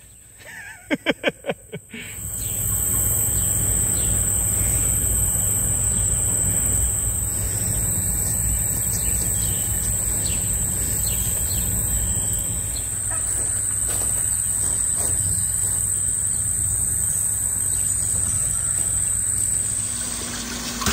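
Steady high-pitched insect chorus from summer insects, over a low steady hum. It starts about two seconds in, after a few quick clicks, and holds until near the end.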